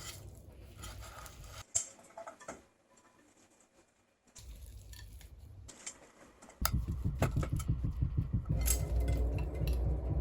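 Kitchen handling sounds: dishes and utensils clinking and pattering in a few short, cut-together bits, louder and busier for the last few seconds.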